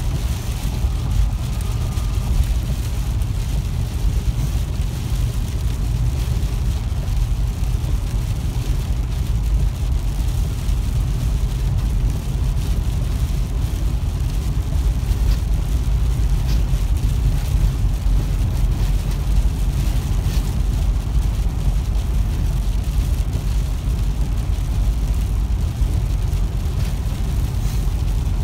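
Steady car cabin noise while driving on a wet highway in blowing rain: a low road-and-wind rumble with a hiss of wet tyres and rain above it.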